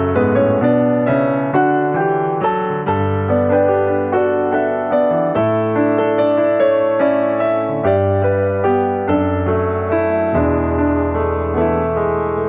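Background piano music: a gentle, evenly paced melody over sustained bass notes.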